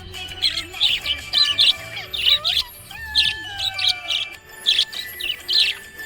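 Budgerigars chirping: quick short chirps several times a second, with a couple of longer gliding whistles near the middle.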